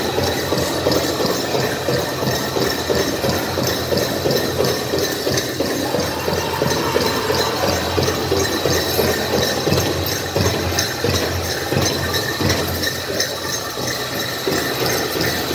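Powwow drum group beating a big drum in a steady, even rhythm for the dance, echoing through a large arena.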